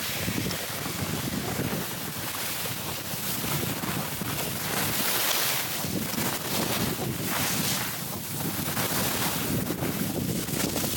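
Wind rumbling on the camera microphone as a skier moves downhill, with the hiss and scrape of skis sliding over packed snow that swells and fades every second or two.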